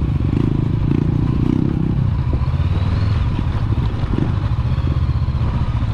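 Motorcycle engine running steadily, its exhaust pulsing fast and low.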